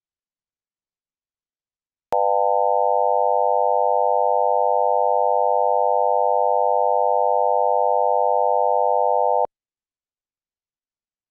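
Several sine-tone oscillators of the BeeOne brainwave-entrainment tone generator sounding together as one steady, buzzy chord of pure tones stacked evenly between about 500 and 900 Hz. It switches on with a click about two seconds in and cuts off with a click about seven seconds later.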